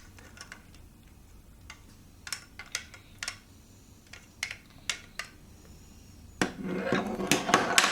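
Plastic LEGO Duplo bricks clicking and knocking together as they are handled and fitted, in scattered single clicks. About six and a half seconds in, a louder continuous clatter and rustle of the pieces begins.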